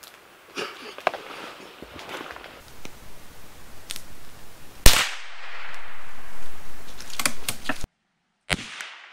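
A .22 LR shot from a Savage Rascal rifle: one sharp crack about five seconds in, the loudest sound, with a trailing echo. After a brief cut to silence, a second, shorter crack comes near the end, with a few small clicks before it.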